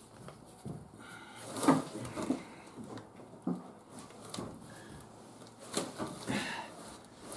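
Gloved hands handling a spin-on diesel fuel filter on its housing: scattered rustles and light knocks, the loudest about a second and a half in and again near the end.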